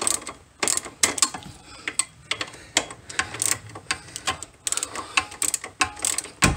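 Socket ratchet wrench clicking in short, irregular runs as it turns out the lower shock mounting bolt on a Corvette's front suspension.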